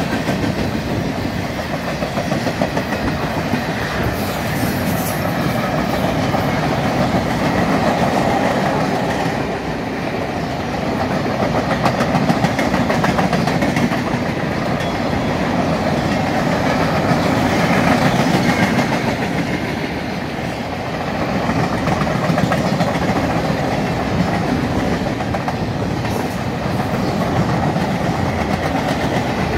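A CSX train of empty military flatcars rolling past, with a continuous rumble of steel wheels on rail and repeated clicks as the wheels cross rail joints. The loudness swells and eases every few seconds as the cars go by.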